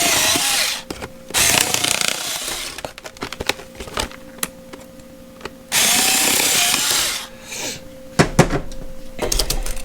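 Small power tool cutting through a plastic clamshell battery package in bursts of a second or so, followed by clicks and knocks as the plastic is handled.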